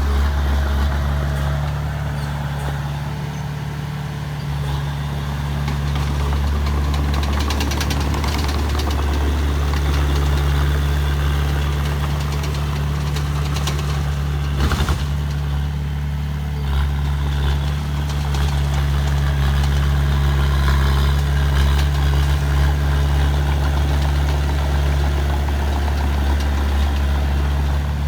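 Diesel engine of heavy earthmoving machinery running steadily with a deep hum, with one sharp knock about halfway through.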